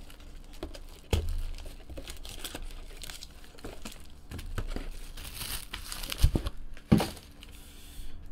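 Plastic wrap and foil trading-card packs crinkling and tearing as a box of cards is unwrapped and the packs handled, with a knock about a second in and two sharper knocks near the end as the box and packs are set down on the table.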